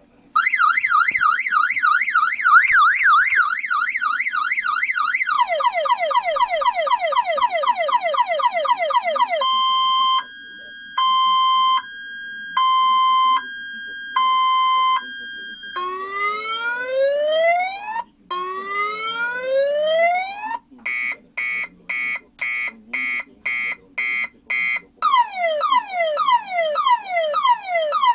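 Six-tone car alarm siren cycling through its tones: a fast warble, then quick falling sweeps, a two-note hi-lo alternation, two slow rising whoops, rapid beeping, and finally repeated downward sweeps.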